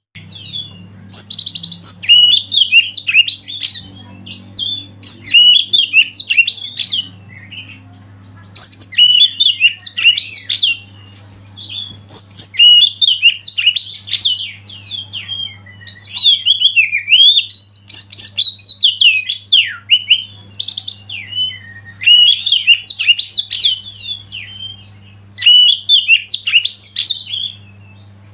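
Oriental magpie-robin singing in about eight loud bursts of rapid, varied whistled phrases, each a few seconds long with short pauses between, over a low steady hum.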